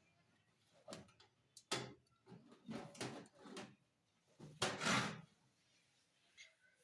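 A few faint knocks and clunks, the loudest about five seconds in.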